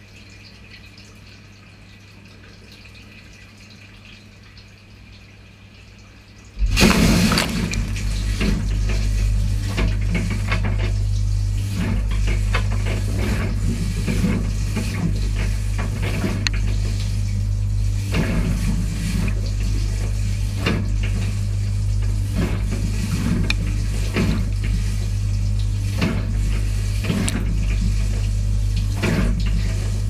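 Dishwasher wash pump starting up about six seconds in: a steady motor hum with water splashing irregularly against the racks, heard from inside the tub. The top rack is getting too little spray, which the owner takes for a fault.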